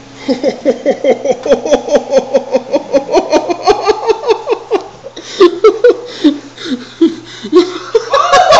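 A person laughing hard and without a break, a fast run of 'ha-ha' pulses; after about five seconds it turns into louder, breathless bursts and shrieks of laughter.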